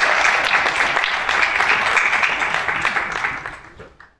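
Conference audience applauding a finished talk, a dense patter of many hands clapping that fades out over the last second.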